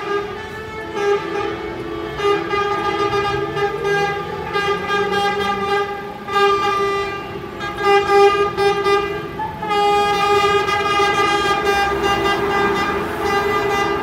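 Convoy of coaches sounding their horns together: long, overlapping blasts that run on almost without a break, with only brief dips, over the coaches' engines.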